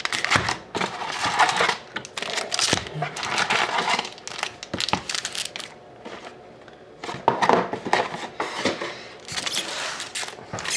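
Foil wrappers of Upper Deck SP Authentic hockey card packs crinkling and rustling as the packs are lifted out of the box and stacked. Light taps come as the stacks are squared up on the table.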